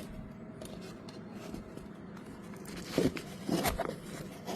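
A parcel being handled and opened: quiet at first, then a few short knocks and scrapes from about three seconds in.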